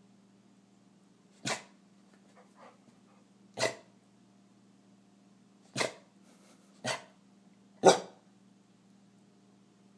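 Dog barking: five single, short barks a second or two apart, the last one the loudest.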